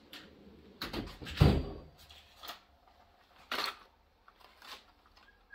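Loaded steel tool chest drawer pushed shut, its socket-filled tray rattling, with a solid thud about a second and a half in. A few lighter clicks and knocks follow as small items are handled.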